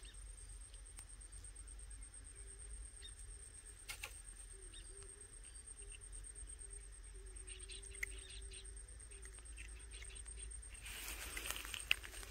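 Faint small clicks and rustles of hands handling nylon fishing line and a small fish, with a short burst of louder rustling and a sharp click near the end. A steady high-pitched whine sits behind.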